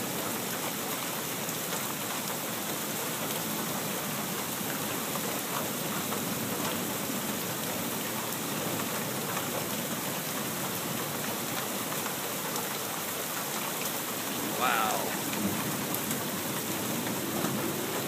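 Steady, drenching rain falling, an even hiss of drops on surfaces. A short, louder sound breaks in about fifteen seconds in.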